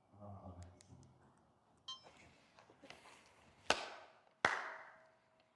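A brief low murmur, then small clicks and two sharp knocks about three-quarters of a second apart, like hard objects being handled and set down. The second knock leaves a short ringing tone.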